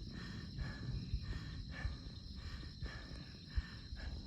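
Night insect chorus: a steady high trill with a rhythmic pulsing call repeating a little under twice a second, over a low rumble.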